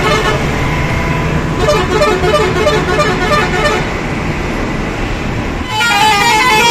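Vehicle horns sounding over the low rumble of truck engines in a traffic jam, with a sustained horn tone through most of it.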